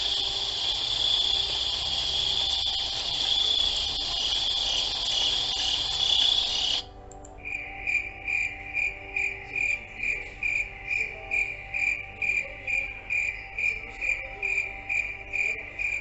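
Insects chirping: a steady high trill for about seven seconds that stops abruptly, followed by rhythmic chirps at about two a second.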